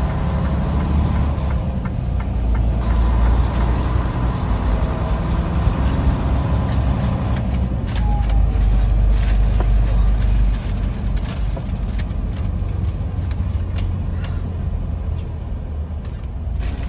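Semi-truck cab noise while driving: a steady low engine and road rumble, with scattered sharp clicks and rattles in the middle of the stretch.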